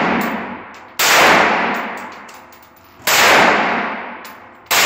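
AR-15 rifle firing three single shots about two seconds apart, each crack followed by a long echoing decay.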